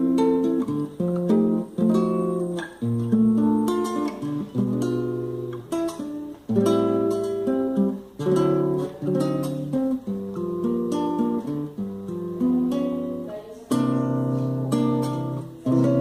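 Acoustic guitar (violão) played solo, chords plucked and strummed in a Brazilian style, each chord ringing and decaying before the next.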